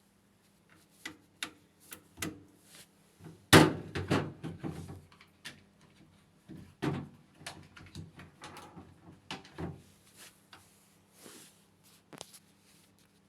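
A series of knocks, clicks and scrapes of hard parts being handled, the loudest a heavy knock about three and a half seconds in followed by a short rattle, over a faint steady hum.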